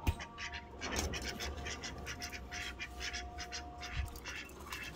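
Ducks quacking in quick, repeated calls, several a second, with a single knock right at the start.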